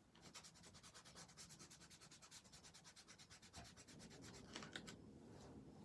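Faint, quick back-and-forth rubbing of a fingertip smudging white crayon into a paper journal page over matte medium, about nine strokes a second. It stops about two-thirds of the way through, leaving a few scattered rubs.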